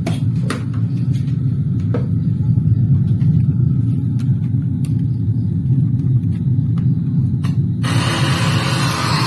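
Onix 2.1 home theater, repaired, playing in FM mode: its speakers put out a steady low rumble, and near the end a loud rush of hiss lasts about a second and a half.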